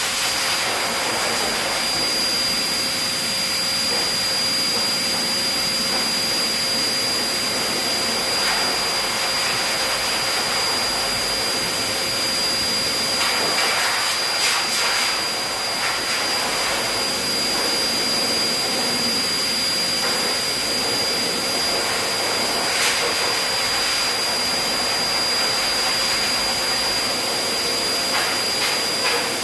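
High-velocity dog grooming dryer running steadily, a loud rush of air with a high-pitched motor whine, blowing the dead undercoat out of a thick double coat.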